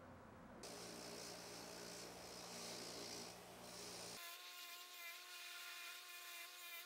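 Faint sound of a small bench buffer's wire wheel spinning, with a solid brass drawer pull held against it to scrub off an old lacquer coating. About four seconds in the sound changes abruptly to a steadier whine with several tones.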